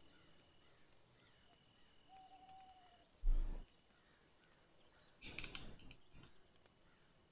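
A single dull thump on the drawing desk a little after three seconds in, then a short rustle and scrape of hands and paper with a few small clicks about two seconds later.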